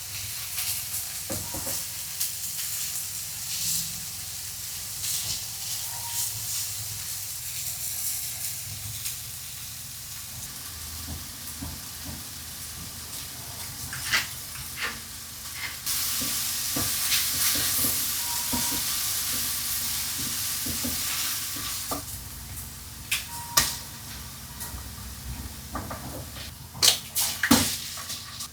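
Food sizzling as it fries in a pan, a steady hiss that grows louder for a few seconds past the middle. A handful of sharp clicks and taps come through, mostly near the end.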